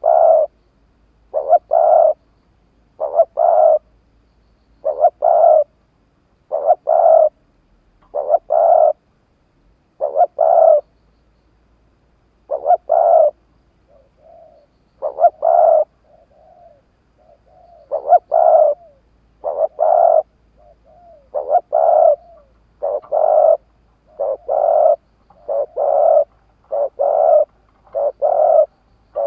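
Spotted dove (cu gáy) decoy bird cooing over and over, each call a short run of clipped coos, repeated about every second and a half and quickening to about one a second near the end. Fainter, softer coos come in between the loud calls around the middle.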